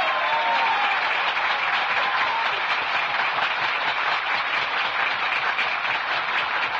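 Large crowd applauding, a dense, steady clatter of many hands clapping, with a few voices calling out in the first two seconds.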